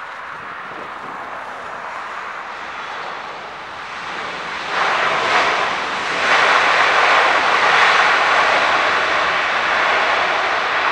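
Boeing 777-300ER's GE90 jet engines on landing rollout: a steady rush that rises sharply about five seconds in, and again a second later, as reverse thrust comes on. It stays loud as the airliner slows down the runway.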